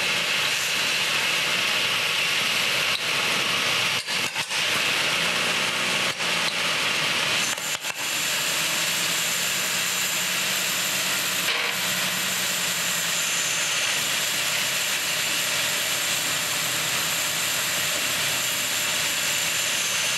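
1948 Chevrolet Fleetmaster's straight-six engine running steadily with no hood over it, with a few brief dips about 4, 6 and 8 seconds in.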